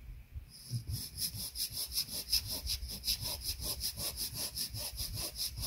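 Hand saw cutting into a dry, dead cedar log, in quick, even back-and-forth strokes of about five a second, starting about half a second in.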